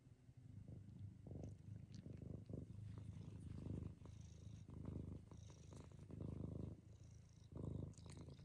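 Domestic cat purring close up: a low rumble that rises and falls in repeated swells while it is being petted.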